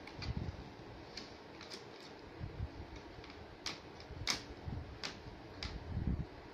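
A baby's hands tapping and slapping at a Dell laptop's screen and keyboard: a scattering of sharp clicks, the loudest a little past the middle, with soft low bumps in between.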